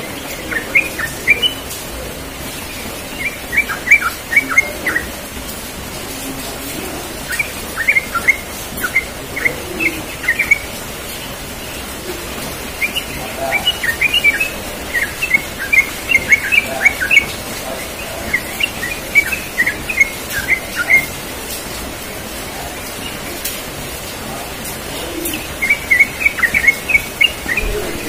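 Yellow-vented bulbul singing: about six short phrases of quick chirping notes with pauses between them, over a steady hiss.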